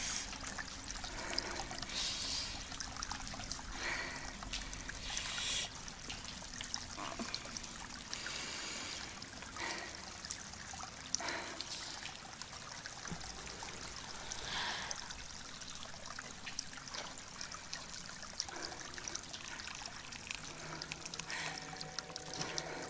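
Water trickling and dribbling as a person washes, scooping water over their arms and shoulders by hand, with a splash every few seconds.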